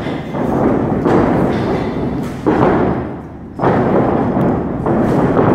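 Heavy thuds of a wrestler moving and landing on a wrestling ring's canvas. Each thud comes on suddenly and leaves a noisy rumble that dies away over a second or so.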